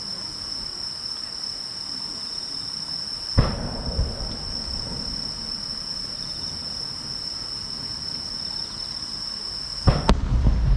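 Large aerial firework shells going off: a sharp bang about three and a half seconds in with a smaller thump just after, and another loud bang near the end followed by a low rumble. A steady high insect trill runs under it.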